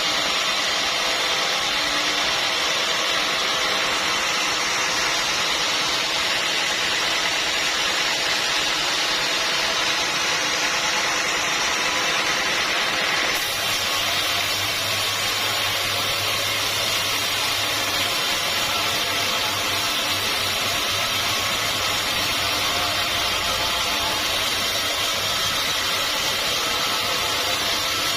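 Sawmill machinery running steadily. The sound changes abruptly about thirteen seconds in, taking on a low hum and more hiss.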